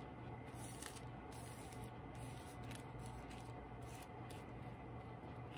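Faint rustling and rubbing of tissue paper as hands press and smooth it onto a glue-coated paper page, over a steady low hum.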